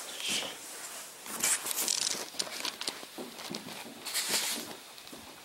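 Quiet, irregular rustling and scuffing noises, with louder hissing rustles about a second and a half in and again about four seconds in.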